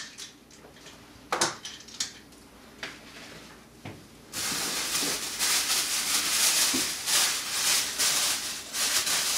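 A few light knocks and rustles of things being handled in a cardboard box. About four seconds in, a thin white plastic bag starts crinkling loudly and keeps rustling as a wrapped toy is pulled out and unwrapped.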